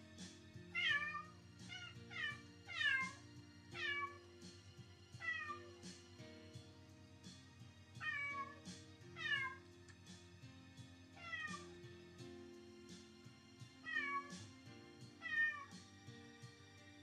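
Domestic cat meowing again and again, about eleven short meows that each fall in pitch, over soft plucked-guitar background music. It is the cat's lonely crying, the separation-anxiety meowing being tested.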